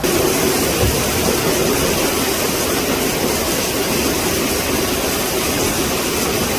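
Loud, steady rushing of fast-flowing floodwater, an unbroken wash of noise with a faint steady hum beneath it.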